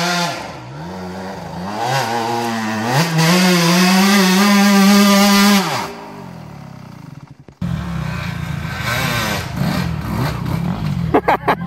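Two-stroke engine of a Yamaha YZ125 dirt bike revving hard up a steep dirt slope, rising in pitch and held near full throttle, then cut off sharply about six seconds in. About a second and a half later a second dirt bike's engine comes in, lower and uneven.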